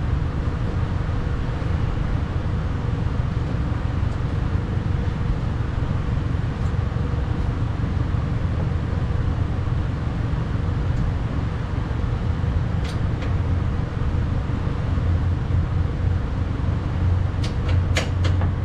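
Steady low background rumble, with a few sharp light clicks, a pair about two-thirds of the way in and a cluster near the end, as parts are handled inside a pickup's stripped door shell.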